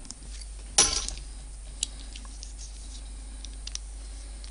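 A small metal screwdriver set down on a workbench with one sharp clack about a second in and a brief rattle, then a lighter click and a few faint ticks of small parts being handled.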